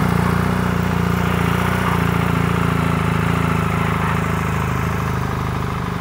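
BMW R 1300 GS boxer-twin engine idling steadily through a freshly fitted Akrapović slip-on muffler, with a full, even exhaust note.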